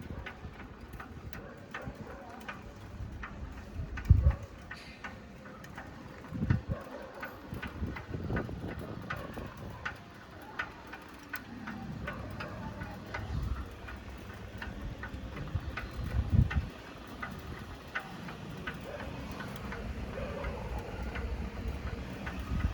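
Bicycle ticking and light rattling while it is ridden: many small, irregular clicks, with a few loud low thumps along the way.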